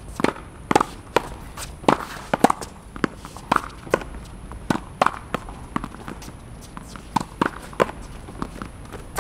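Tennis ball hit against a practice wall in a steady rally: a string of sharp pops from racket, wall and court bounces, about two a second.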